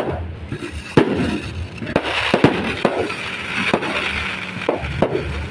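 Fireworks and firecrackers going off: a series of sharp bangs, roughly one a second, over a steady crackling background.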